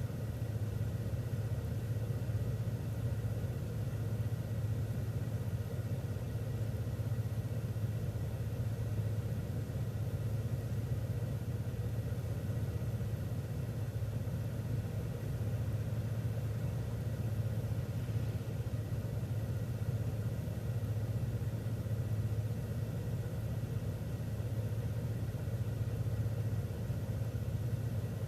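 City transit bus engine running with a steady, even low hum, heard from inside the bus.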